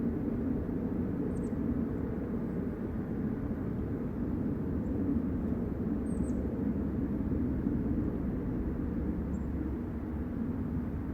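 Steady low rumble in the sky, loud and lingering, sounding like a low-flying jet airplane, though no aircraft is in sight. Two faint, brief high chirps come through, about a second and a half in and again about six seconds in.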